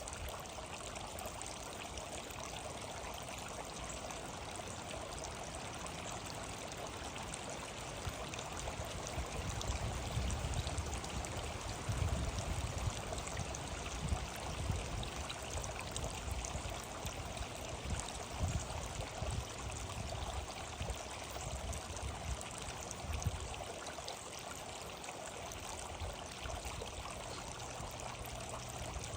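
Steady rush of running water, like a stream or fountain, with low rumbling surges through the middle.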